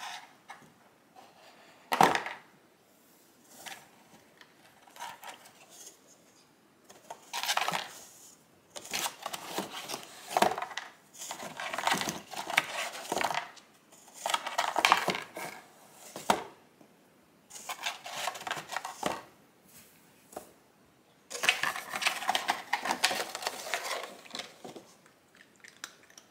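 Irregular rustling and light clattering of small objects being moved about, in bursts of one to a few seconds, with a sharp knock about two seconds in.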